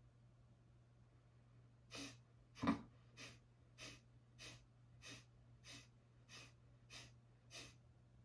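Breath of Fire yoga breathing: a woman's ten sharp, forceful exhales through the nose, driven by the lower abdominal muscles, about one and a half a second, starting about two seconds in. Each sounds a little bit like a sneeze; the second is the loudest.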